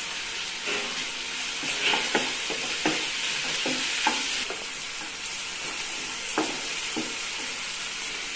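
Chopped onions, tomatoes and green chillies sizzling in oil in a nonstick kadai as ginger paste is stirred in, with a wooden slotted spatula scraping and knocking against the pan every second or so. The sizzle eases a little about halfway through.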